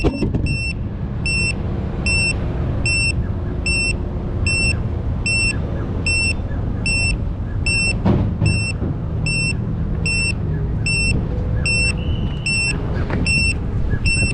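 Piezo buzzer of a landed FPV drone beeping steadily, short high beeps about twice a second, the locator beeper sounding while the drone lies on the ground. A low wind rumble on the microphone runs underneath, with a single knock partway through.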